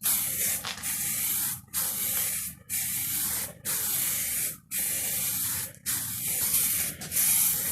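Aerosol can of grey plastic primer spraying in a string of hissing bursts about a second long, with brief breaks between, as it is sprayed onto plastic trim.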